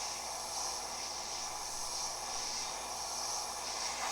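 Gaoyue 850 hot air rework station running: a steady hiss of air from the nozzle, with the buzz of the small air pump inside the unit, as it heats a RAM chip's solder to desolder it.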